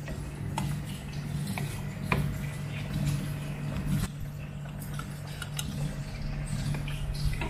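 Cooking utensils scraping and clicking against a stainless steel pan as thick bolognese sauce is stirred and scooped, a few separate knocks over a steady low hum.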